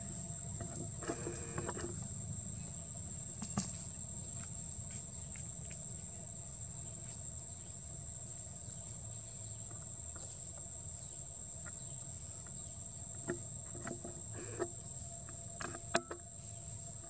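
Outdoor ambience: a steady high-pitched insect drone over a low rumble, with a few faint ticks and taps, the sharpest near the end.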